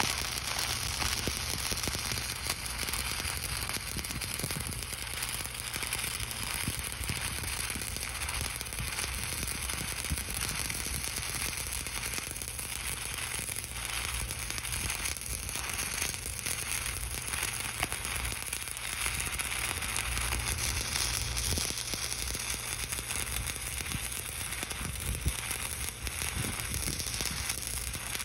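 Stick (SMAW) welding arc on steel: a steady crackling sizzle as the electrode burns along the joint of a plate end cap on a steel pipe, without a break.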